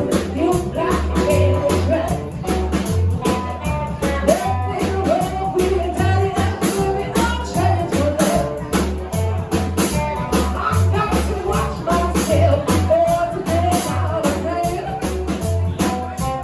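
Live rockabilly band playing a rock and roll number, with vocals over guitar, a bass line stepping between notes and a steady drum beat.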